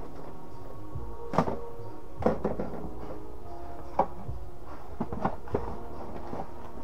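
About half a dozen sharp knocks and clatters of things being handled in a kitchen, the loudest about a second and a half in and again about four seconds in, over steady background music.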